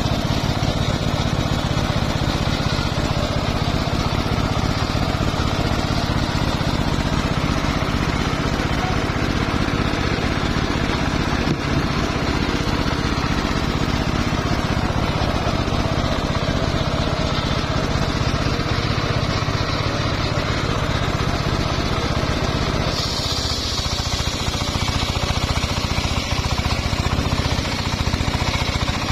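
Homemade circular sawmill running steadily, its blade ripping lengthwise through a mahogany log. Near the end the sound turns to a higher hiss.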